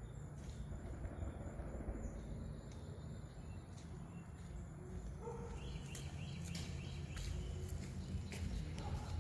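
Rural outdoor ambience: a steady low rumble with a thin, steady high insect drone, and birds start chirping about five seconds in.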